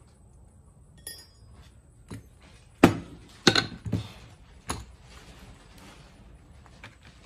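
Small metal parts and tools clinking and knocking against each other as a car starter solenoid is taken apart: about six separate sharp clinks in a few seconds, the loudest about three seconds in.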